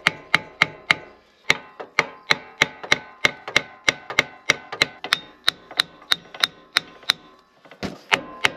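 Hammer blows on the New Holland H6750 disc mower's gearbox and drive module, about three a second, each with a short metallic ring. The blows stop briefly near the end, then start again.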